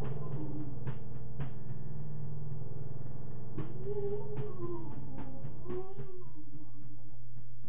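Experimental electronic jam music: a steady low synthesizer drone under slow gliding tones that rise and fall, with scattered sharp clicks.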